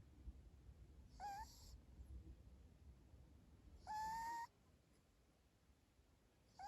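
A sleeping dog snoring faintly, each breath coming out as a short, high whistling note that glides slightly upward, repeating about every two and a half seconds. The longest and loudest note comes about four seconds in.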